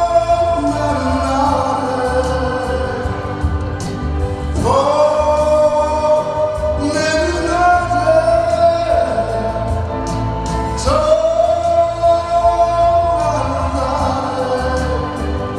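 A man singing a Korean song into a microphone over a recorded backing track, amplified through stage speakers. He holds two long notes, one starting about a third of the way in and one about two-thirds in.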